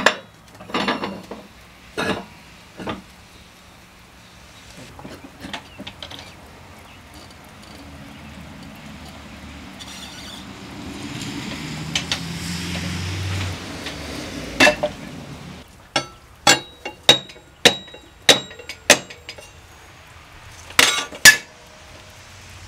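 Old manual tire changing tool at work on a steel truck wheel: metal clanks and knocks from the tool and its bar against the changer and rim, a longer scraping stretch in the middle, then a quick run of sharp metallic clicks and knocks near the end.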